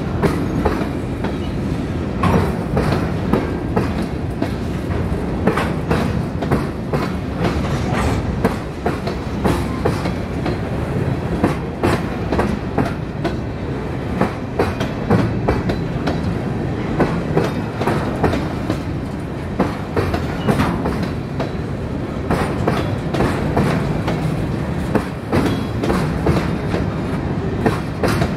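Freight train of covered hopper cars rolling past close by: a steady rumble with repeated clicks of the wheels over the rail joints.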